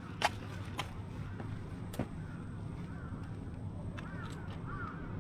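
Steady low hum with a few sharp clicks early on, then from about four seconds in a run of short crow caws.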